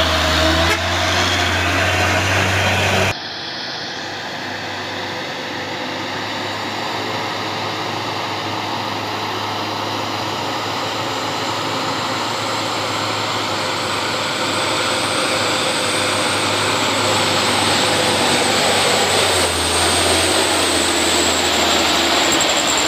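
Diesel engines of heavy cargo trucks labouring up a steep grade. One truck passes close at first. After an abrupt cut, the engine noise grows slowly louder as more trucks climb nearer, with a thin high whine above it, and another truck passes close near the end.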